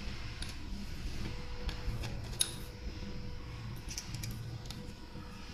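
Scattered light metallic clicks and taps of spray-gun parts being handled, as the fluid needle is slid into the back of the gun body, over a low steady hum.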